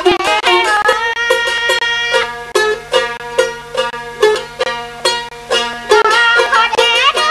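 Northern Thai 'so' folk song: a plucked-string instrument plays a quick melody of short notes, with a singing voice in the first second and again near the end.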